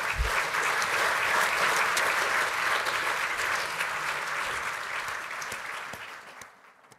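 Large audience applauding, steady dense clapping that fades out near the end. A low thump sounds just as the applause begins.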